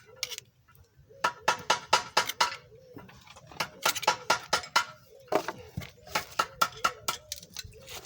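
Repeated sharp metallic clicks and clinks, each with a brief ring, coming in irregular groups of several a second with short pauses: metal striking metal during engine repair work.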